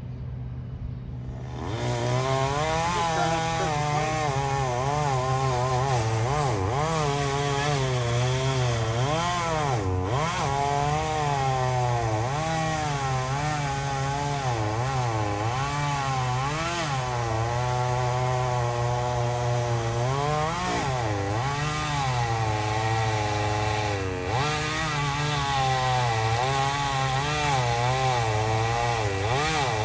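Gas chainsaw coming up to speed about two seconds in and then cutting wood under load, its engine pitch rising and falling as the chain bites and frees, with brief dips twice.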